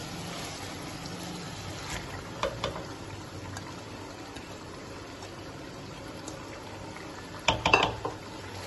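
A pot of meat and tomato masala bubbling steadily on the stove as boiled purslane leaves slide in from a bowl, with a couple of light clinks. Near the end a wooden spoon knocks against the pot several times as the greens are stirred in.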